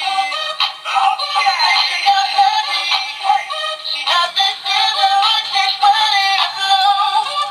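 Battery-operated dancing punk figure playing its song through a small built-in speaker: a thin, tinny song with a singing voice over music, with no bass.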